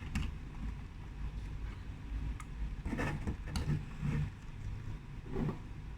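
Hand dryer wiring connectors being pulled off the PC board: scattered small clicks and handling noises at irregular intervals over a low steady hum.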